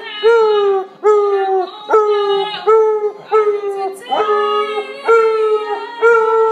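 A dog howling in a run of short, repeated notes, each rising quickly then sliding slightly down, together with a woman singing along.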